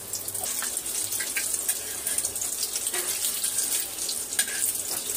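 Egg-dipped kababs shallow-frying in hot oil on a flat griddle, a steady crackling sizzle, with a metal spatula clicking and scraping on the pan a few times as they are turned.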